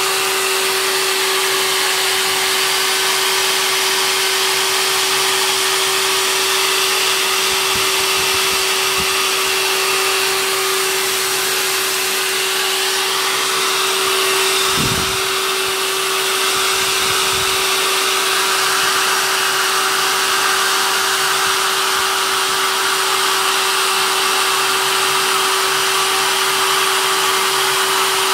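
Hair dryer blowing steadily with a constant motor whine, heating the wet back of a slack canvas to shrink it taut. There is a brief low buffeting about halfway through.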